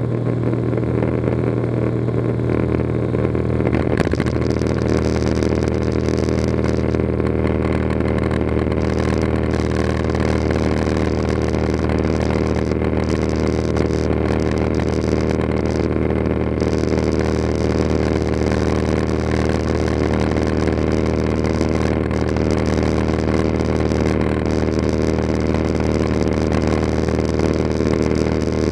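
Cessna 182RG's six-cylinder Lycoming engine and propeller droning steadily in flight, heard inside the cockpit with a hiss of rushing air over it.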